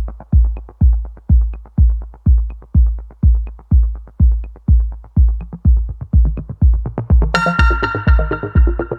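Electronic background music with a steady, fast kick-drum beat; a bright synth line comes in about seven seconds in.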